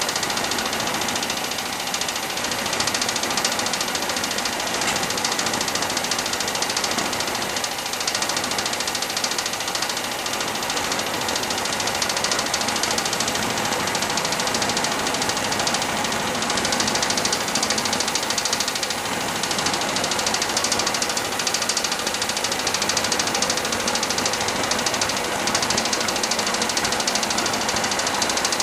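Alpha-configuration, air-charged Stirling engine built from a Chrysler RV2 car air-conditioning compressor, running steadily with no load. It makes a fast, even mechanical clatter.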